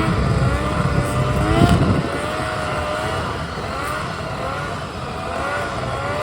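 A vehicle engine running, its pitch rising and falling as the throttle varies, with a heavier low rumble for the first two seconds.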